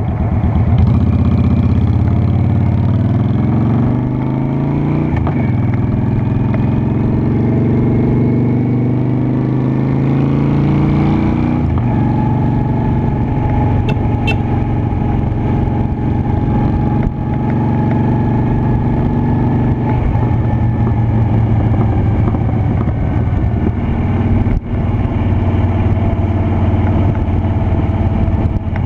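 Honda Shadow Spirit 750's V-twin engine running under way, its pitch rising steadily for about ten seconds as it accelerates, then dropping sharply and running fairly steadily at a lower pitch for the rest.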